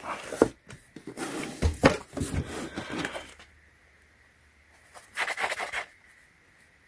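A screwdriver set and its packaging being handled and opened: rustling, clicks and knocks for about three seconds, then a short cluster of clicks about five seconds in.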